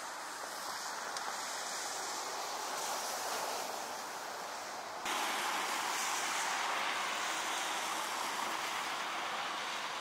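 Steady outdoor hiss in heavy wet snowfall. About five seconds in it jumps louder and brighter as it changes to a slushy street, where traffic on the wet road gives a broad, steady hiss.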